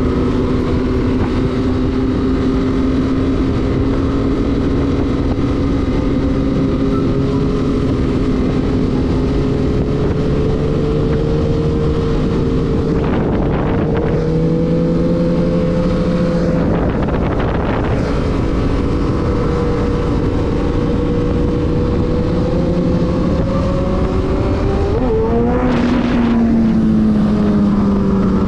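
Sport motorcycle engine running at highway cruising speed, with wind rushing over the bike. The engine note holds mostly steady, rises briefly near the end, then falls away.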